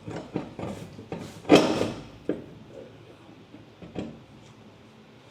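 Clatter and knocks of hard objects being handled, with a loud scraping rattle about a second and a half in and a sharp click about four seconds in.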